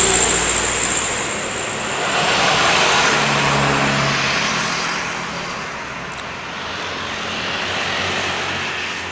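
Heavy vehicles passing close by on a highway: a broad engine and tyre roar that swells about two seconds in, fades by about six seconds, then rises a little again near the end.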